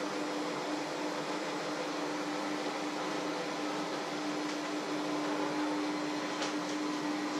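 Electric hand mixer running steadily in a bowl, a constant motor hum, with a couple of faint clicks near the end.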